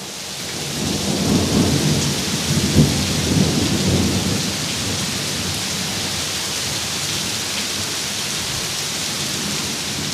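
Very heavy rain pouring down in a steady hiss, with an irregular low rumble through the first few seconds.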